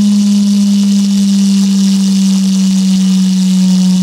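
Subwoofer playing a loud, steady low tone that drifts slightly lower in pitch, with a faint hiss above it.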